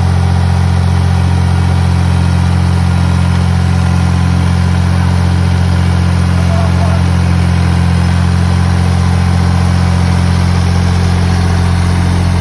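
An engine idling steadily with a deep hum, then cutting off suddenly at the end.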